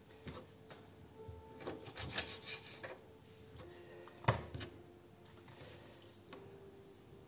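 Knife and hands working a salted herring on a wooden cutting board: scraping and rubbing with scattered small clicks, and two sharp knocks on the board, the louder one about four seconds in.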